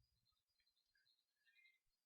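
Near silence: a pause with no audible sound.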